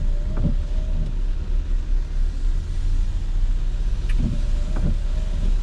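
Windscreen wiper sweeping across the rain-wet glass twice, about four seconds apart, each pass giving a short whining tone with a few soft knocks. Under it, a steady low rumble from the van's engine and the road as it crawls in traffic.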